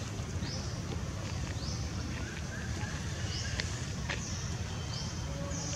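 Outdoor ambience: a steady low rumble with short, high chirps repeating about once a second.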